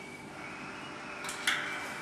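Wera Koloss reversible ratchet clicking through a few quick strokes about a second and a half in, over a low steady hum.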